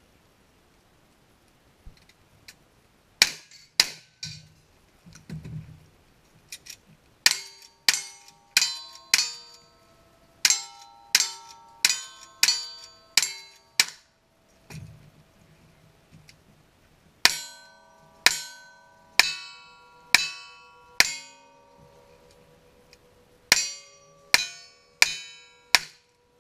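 Strings of rifle and revolver shots, each followed by the ringing clang of a steel target being hit. The shots come fast, roughly one every half second to second, in three runs with short pauses between.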